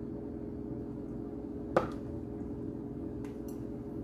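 A spoon stirring cornstarch and cold water in a small bowl into a slurry, with one sharp clink against the bowl about two seconds in and a couple of fainter ticks later, over a steady low hum.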